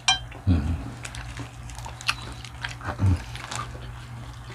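Close-up eating sounds: biting and chewing lettuce and ham, with scattered crunchy clicks. A sharp clink of a utensil comes right at the start, and two short low hums come about half a second and three seconds in, over a steady low background hum.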